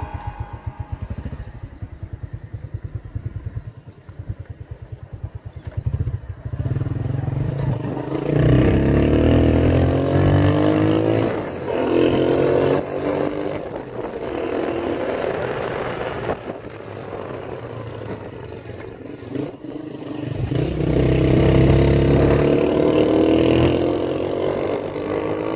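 Small motorcycle engine heard from the rider's seat, first puttering at low revs with an even, quick pulse, then pulling harder with the revs rising in several climbs as the bike accelerates.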